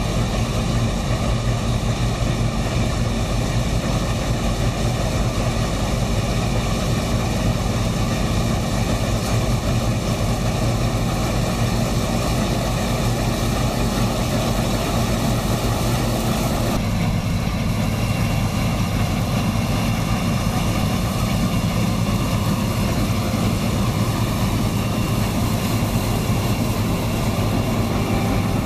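Laverda M310 combine harvester running steadily under load while harvesting soybeans: a constant engine hum mixed with the rushing noise of the header and threshing machinery. The sound changes abruptly about seventeen seconds in, as the machine is heard from a new position.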